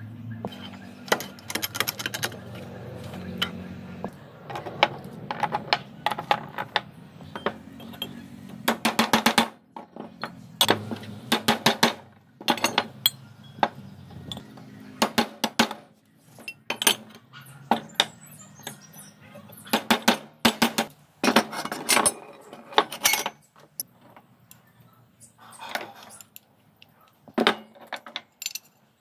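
A hammer striking steel: runs of sharp metallic clanks with short pauses between, as a small steel sleeve is tapped into a steel tube.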